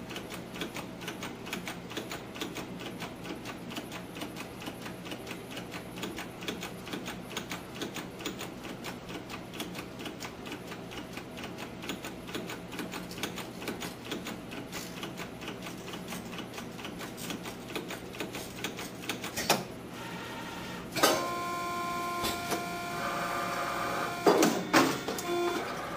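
Gerber MultiBender MR487 rotary steel-rule bender running, with a rapid, even mechanical ticking as it feeds and bends the rule. About 21 seconds in, a steady whine with several tones takes over for a few seconds, followed by a few sharp knocks near the end.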